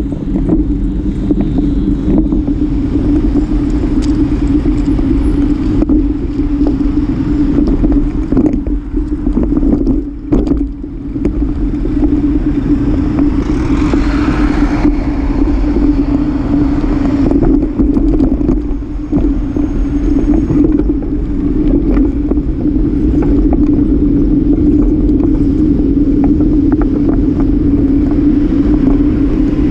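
Wind buffeting a camera microphone on a moving bicycle: a steady loud rumble with light rattles and clicks from the bike rolling over the pavement. A hiss swells briefly about halfway through.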